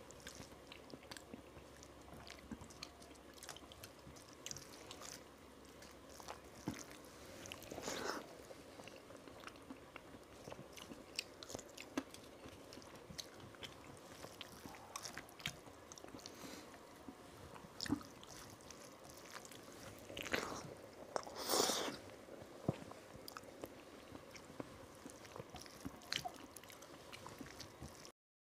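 Close-miked eating by hand: fingers squishing and mixing rice with dal and vegetable curry on a metal plate, with chewing and lip-smacking. Many small soft clicks, with louder moist rustles about 8 seconds in and again around 21 seconds.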